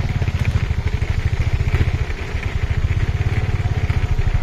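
A tuk tuk's motorbike engine running steadily on the move, with a rapid low pulsing, heard from inside the passenger carriage.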